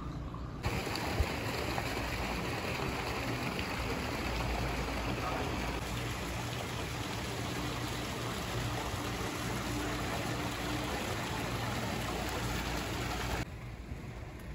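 Steady rushing of running water at a hot-springs pool. It comes in suddenly just after the start and cuts off suddenly about a second before the end.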